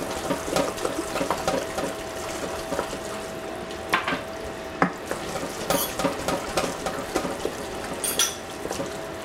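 Raw ground-meat paste being beaten rapidly with a spoon in a metal saucepan: quick, irregular wet squelching and scraping, with a few sharper knocks of the spoon against the pan. The meat is being worked until it turns sticky and binds for meatballs.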